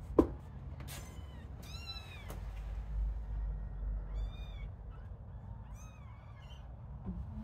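A litter of young kittens mewing in short, high, arching calls, several in quick succession around two seconds in and again around six seconds in, calling for their mother, whose owner thinks they are hungry. A single sharp thump just after the start is the loudest sound.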